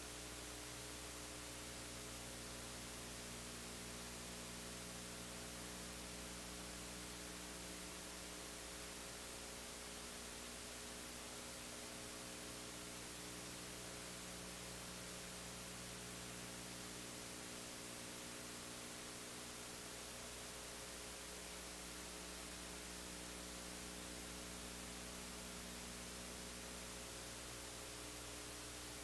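Steady hiss with a low electrical hum and its evenly spaced overtones, unchanging throughout: the noise floor of an old recording with no other sound on it.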